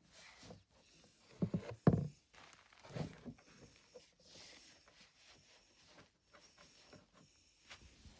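Plastic Mini Brands capsule balls being handled, with a few light knocks and clatter, the strongest about two and three seconds in.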